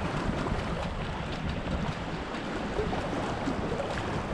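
Steady wind buffeting the microphone over small waves lapping.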